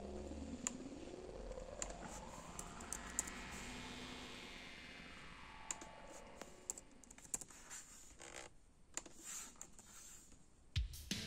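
Faint computer keyboard typing and mouse clicks, scattered sharp clicks, over a soft synthesizer tone that sweeps slowly down, then up, then down again in pitch. Louder music comes in near the end.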